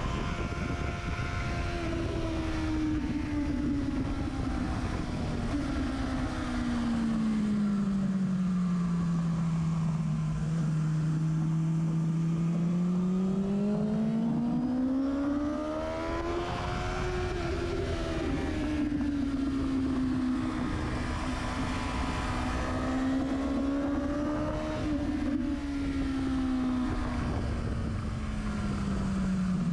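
Sport motorcycle engine at speed, heard close to its exhaust silencer: the engine note falls slowly, holds low for several seconds, then rises and falls again a few times with smooth changes in revs, over a steady rush of wind.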